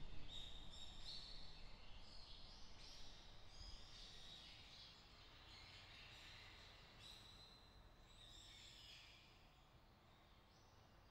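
Faint songbirds chirping and whistling in short repeated phrases, over a low wind hiss, the whole slowly fading away.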